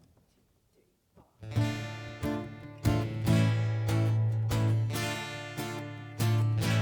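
Acoustic guitar strummed chords opening a song, starting about a second and a half in after a brief hush, then carrying on as a steady rhythm with no singing yet.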